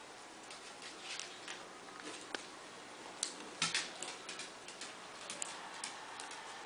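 Seven-week-old Havanese puppies clambering about on a blanket, making scattered light clicks, taps and rustles, with a brief cluster of sharper clicks a little past halfway.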